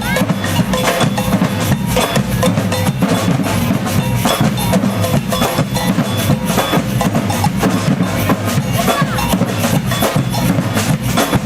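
Samba band drumming: bass drums and snares playing a fast, steady beat of many dense strikes.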